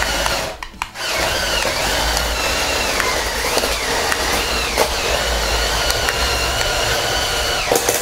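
Electric motors and plastic gear train of a CADA C61056 brick-built bulldozer model whining as it drives its tracks over loose bricks, with light clicking. The whine stops briefly about half a second in, then runs on with its pitch sagging and rising as the motors labour against the bricks.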